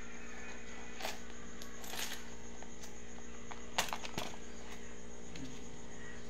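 A steady hum with a few short sharp clicks, the loudest pair a little under and a little over four seconds in.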